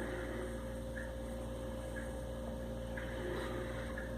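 Steady low electrical hum with a faint higher tone, and a few faint soft ticks about once a second.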